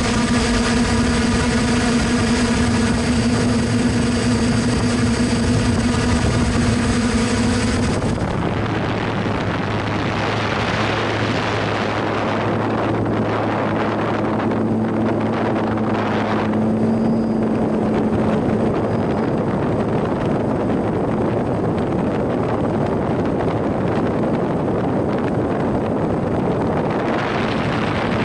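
Hexacopter's electric motors and propellers humming, heard from the onboard camera, over a rushing noise. A strong hum of several steady tones lasts about eight seconds, then it drops away and the rushing noise is the main sound, with a fainter hum that fades by the middle.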